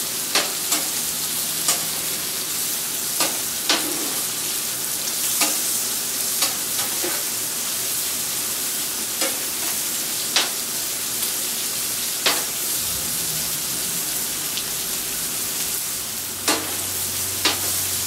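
Shrimp and other food sizzling on a hot griddle top with a steady frying hiss. A metal spatula flipping the shrimp clicks and scrapes sharply against the griddle about a dozen times, irregularly.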